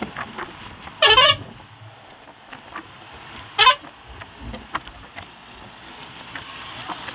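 A vehicle horn honks twice, a short blast about a second in and a briefer one about two and a half seconds later, over the steady road and engine noise of the moving vehicle.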